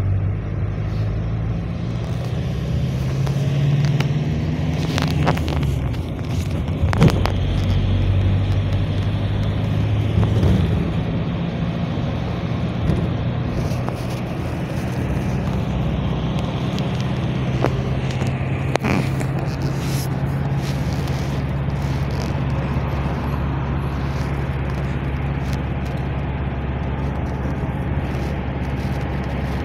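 GAZ Next minibus driving, heard from inside the passenger cabin: a steady low engine drone under tyre and road noise. The engine note rises and falls a few times in the first ten seconds or so, then holds steady. A few sharp clicks are heard, around 5, 7 and 19 seconds in.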